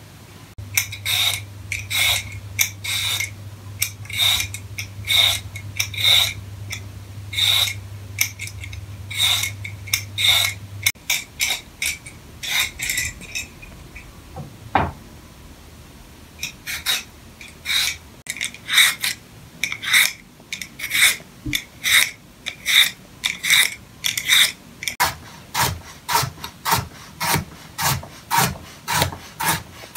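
Vegetable peeler scraping down a carrot in repeated strokes, about two a second. Near the end a kitchen knife chops carrot on a wooden cutting board in quicker strokes, each ending in a knock on the board.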